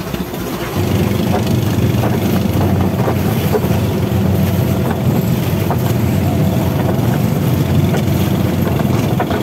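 Fishing boat's engine running under way, getting louder and heavier about a second in, then holding a steady low drone.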